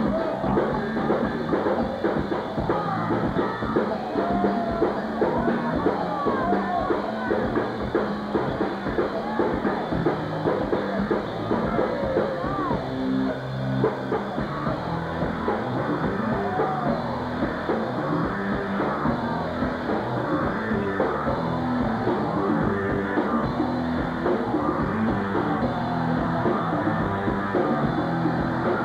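A funk-rock band playing live, with drum kit, electric bass and electric guitar, in one continuous stretch of loud music.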